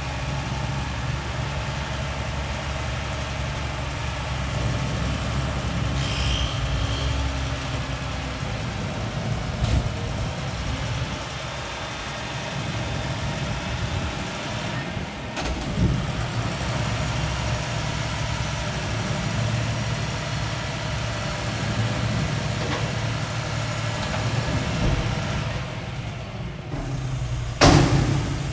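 Garbage truck engine running steadily while it empties a dumpster, with a couple of metal knocks along the way and one loud bang near the end.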